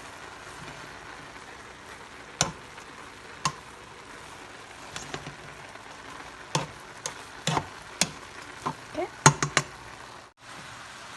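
Ground chicken and vegetables sizzling in a pan while being stirred, with a spoon knocking against the pan now and then, several sharp knocks close together near the end.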